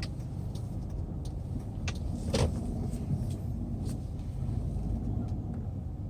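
Hyundai Sonata Brilliant driving, heard from inside the cabin: a steady low engine and road rumble, with a few light clicks.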